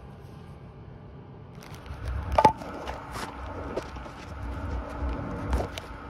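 A faint steady hum, then from about one and a half seconds in a low rumbling street background with several sharp knocks and clinks. The loudest knock comes about two and a half seconds in, with a brief ring.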